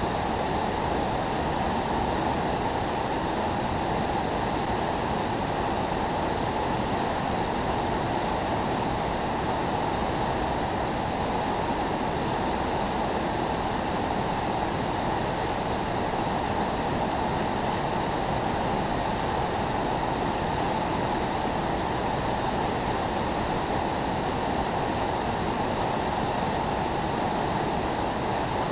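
Steady rush of river water pouring over and below a spillway, an even, unbroken noise.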